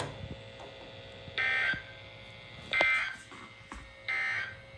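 NOAA Weather Radio EAS end-of-message data burst: three short, identical digital screeches a little over a second apart, marking the end of the alert.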